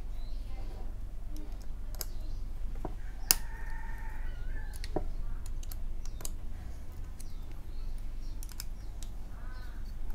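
Scattered light clicks and taps of metal and plastic as a Tobaki PWK 30 mm carburetor is handled and the screws of its bottom cover are undone with a hex key, with one sharper click about three seconds in.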